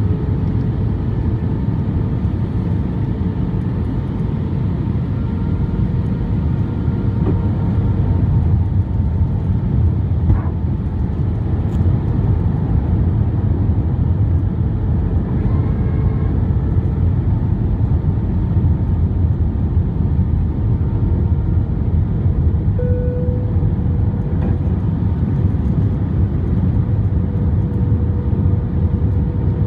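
Airbus A320 cabin noise heard from a window seat over the wing during descent: a steady low rush of engine and airflow noise, with a faint steady tone over it that swells briefly a little past two-thirds of the way through.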